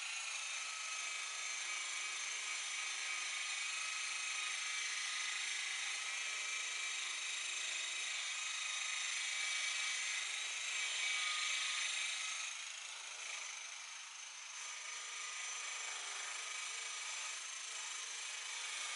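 Electric buffer running steadily, its motor giving a continuous whine over hiss; the level dips briefly about two-thirds of the way through as the load changes, then steadies again.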